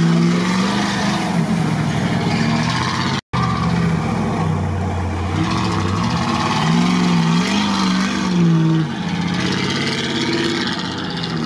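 Off-road truck engine revving under load, rising and falling in pitch as it tries to tow a stuck vehicle out of mud. The sound cuts out for an instant about a third of the way in.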